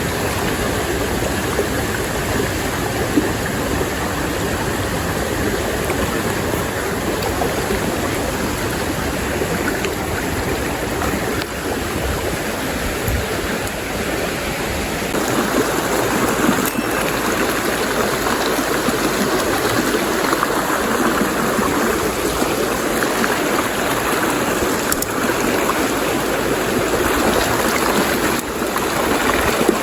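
A shallow stream rushing and babbling steadily over rocks. About halfway through the sound turns a little brighter, with less low rumble.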